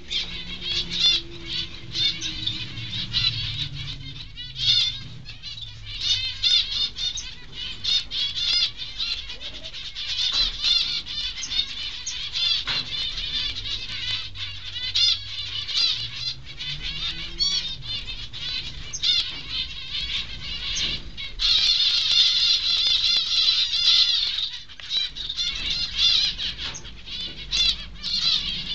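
Zebra finches calling: a constant, dense chatter of rapid, high, wavering notes, louder for a few seconds past the middle, with scattered sharp clicks.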